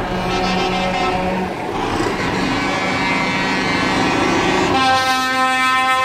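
Truck air horns sounding over running truck engines. A louder, steady horn note starts abruptly near the end and is held.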